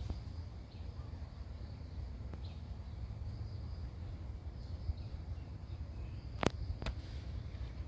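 Outdoor ambience: a steady low rumble under faint, high insect chirring, with two sharp clicks about half a second apart near the end.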